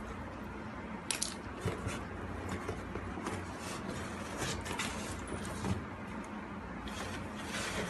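Rustling and clicking as belongings are handled in a cardboard box: a leather bag with a metal buckle being lifted and searched, with small knocks and clinks here and there over a steady low hum.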